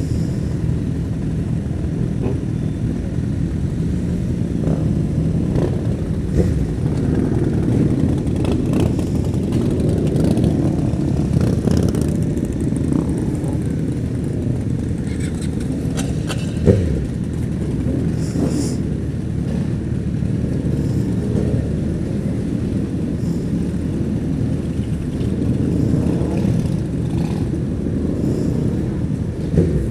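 Several motorcycles running at low speed as a group pulls away together, over the steady sound of a Honda CBR1000RR Fireblade's inline-four engine moving slowly among them. A sharp knock stands out about 17 seconds in.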